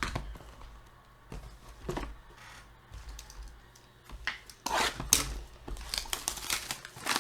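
Trading card boxes being unwrapped: plastic wrapping crinkling and tearing in irregular crackles, sparse at first and thicker in the second half.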